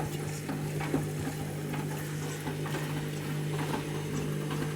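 Candy Grand'O Vita washing machine in its final rinse: water sloshing and splashing in the drum over a steady hum from the machine.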